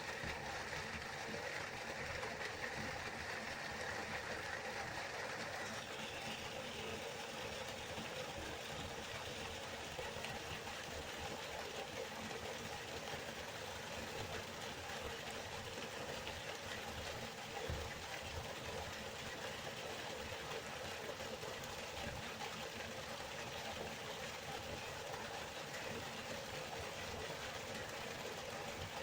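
Steady rushing of a flowing river. The tone of the rush changes slightly about six seconds in, and there is one soft knock about two-thirds of the way through.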